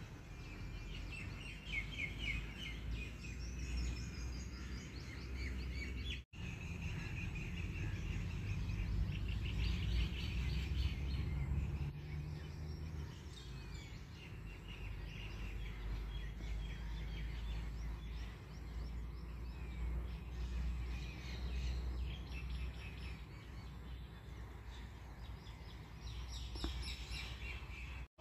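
Small birds chirping and twittering again and again over a steady low outdoor rumble, with a brief break about six seconds in.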